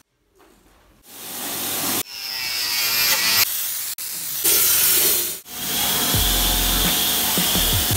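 A run of short, cut-together workshop sounds from a car underbody job: a power tool running, then an air spray gun hissing, then a pressure washer jet spraying steadily over a low rumble.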